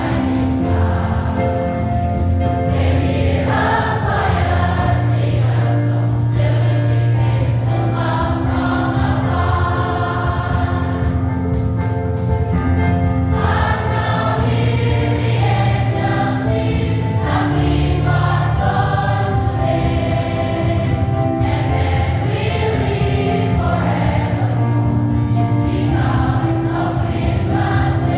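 A school choir singing, with long held notes that change every second or two over a steady low bass.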